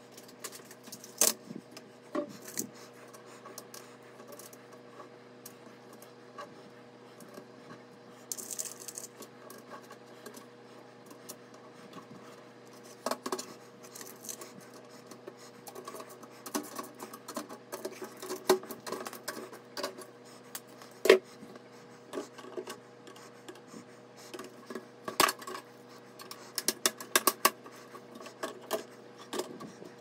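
Small metal parts being handled and fitted into a steel PC case's motherboard tray: scattered clicks and clinks with some rubbing and scraping, the sharpest knocks about a second in, around the middle, and near the end.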